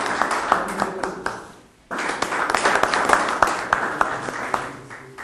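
A small audience clapping, in two rounds: the first dies away about a second and a half in, and the second starts sharply about two seconds in and tapers off near the end.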